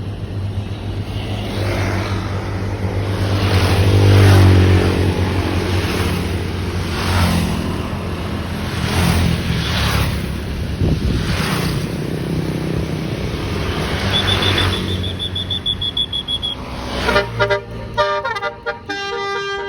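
Tour bus diesel engine running with its note rising and falling, with a string of short hissing bursts and a high trilling tone about two-thirds of the way through. Near the end a 'telolet basuri' multi-tone musical horn starts, several horn notes sounding together and stepping through a tune.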